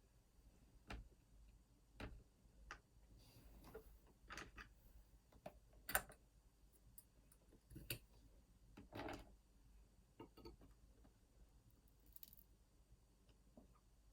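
Faint, scattered small clicks and taps of metal lock parts being handled while a lock cylinder is taken apart, irregularly spaced, with the loudest about six and nine seconds in.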